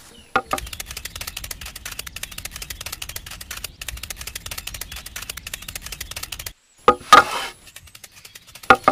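A small motor running with a fast, steady rattling clatter over a low hum, cutting off abruptly about six and a half seconds in, followed by a few loud sharp knocks.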